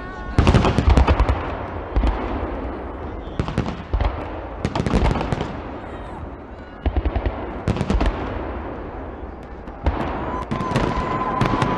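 Fireworks shells bursting in the sky: volleys of sharp bangs and crackling that come in clusters every second or two, with the loudest volley about half a second in.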